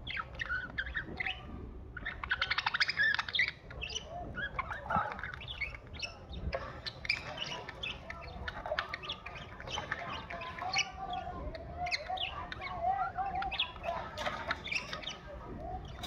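Budgerigars chirping and chattering in a busy run of short calls, with a fast rattling series of chirps about two seconds in and a warbling stretch later on.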